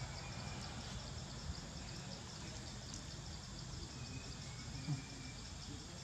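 Outdoor forest ambience: a steady, pulsing insect trill sits high over a low rumbling background. There is one soft low thump about five seconds in.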